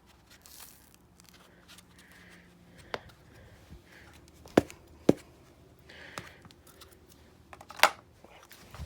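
A few sharp clicks and knocks, four or so spread out, with faint rustling between: the parts of a Hoover Elite Rewind upright vacuum being handled while the motor is off.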